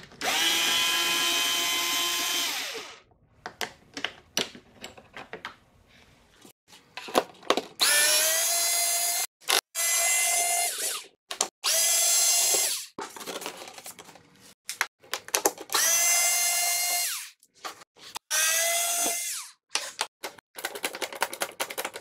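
Cordless drill-driver with a Torx T20 bit backing screws out of a plastic mower deck cover. The motor whines in about six short runs, each spinning up and then holding a steady pitch, with small clicks and clatter from handling between runs.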